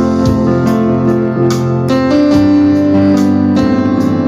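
Piano keyboard playing sustained chords of a slow worship song, with a new chord struck about every second.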